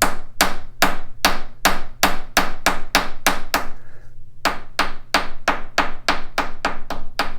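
Hammer tapping rapidly on a steel knurled nut, about five light blows a second, knocking down a burr left from machining. The tapping pauses briefly about four seconds in, then resumes.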